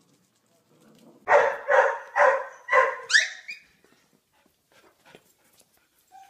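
A dog barking four times, about half a second apart, then giving a short rising yelp.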